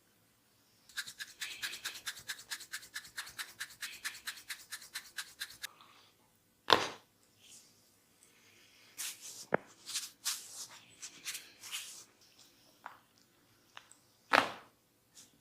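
Barber's hands working a client's head and hair: a fast run of crisp scratching or tapping strokes, about eight a second, for about five seconds. Then a sharp loud smack, a few rubbing strokes, and a second sharp smack near the end.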